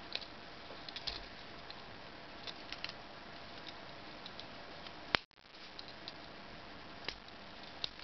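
Light metallic clicks and ticks of a Victorinox Explorer Swiss Army knife's folding tools as fingers pick at them and pull one open, over a steady hiss. One sharp, louder click comes about five seconds in.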